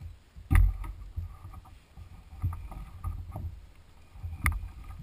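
Hollow knocks and thumps on a plastic pedal kayak's hull, the loudest about half a second in and another near the end. Between them comes faint clicking from a spinning reel as a hooked fish is played on a bent rod.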